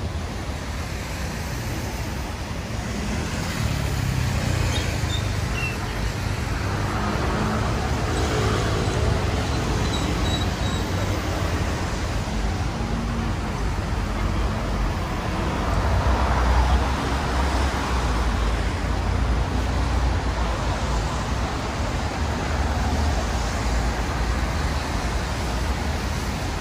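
Steady road traffic on a wide city road: cars and buses passing with engine rumble and tyre noise on wet pavement, swelling as heavier vehicles go by and loudest a little past the middle.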